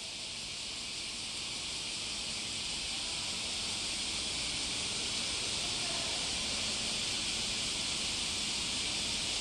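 A steady high-pitched hiss that fades in over the first few seconds, with no distinct sounds standing out from it.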